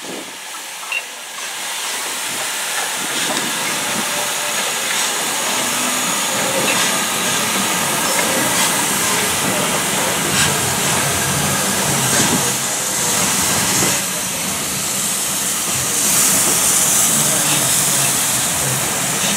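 LMS Stanier Black Five steam locomotive No. 5428 hissing steam steadily as it moves slowly past with its train, the hiss growing louder about two seconds in.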